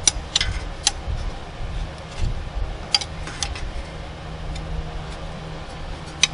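Several sharp, irregular clicks and clinks, three in the first second, two about three seconds in and one near the end, over a low steady hum and rumble.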